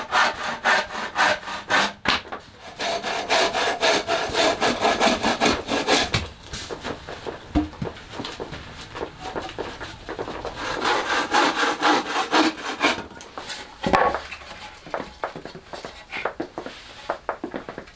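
Bow saw cutting through a scrap-wood board in fast back-and-forth strokes, in two bouts with a pause between. A sharp wooden knock follows about fourteen seconds in, then a few lighter knocks.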